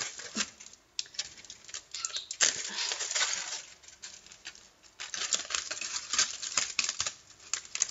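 Aluminium foil crinkling and crackling in irregular bursts as it is handled and peeled off a foil-wrapped prop blade. The crackling pauses briefly about a second in and again about five seconds in.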